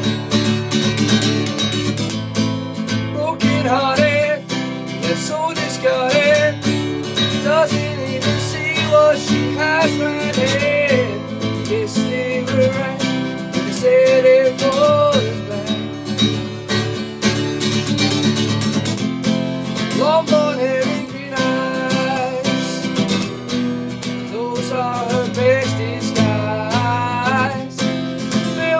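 Acoustic guitar being strummed, with a man singing a melody over it.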